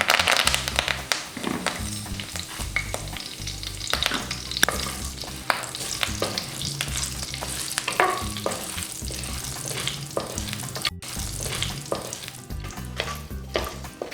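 Ingredients frying and sizzling in hot oil in a pan while being stirred, with frequent short scrapes and clicks of the spoon against the pan. The sizzle starts suddenly and loudly.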